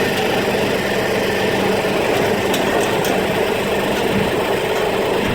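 An engine running steadily at an even speed, with a constant hum.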